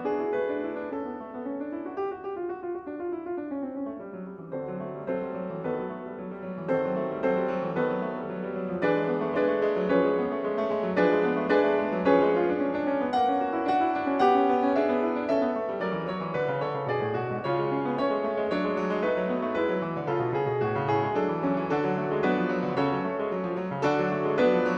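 Background piano music, a run of changing notes.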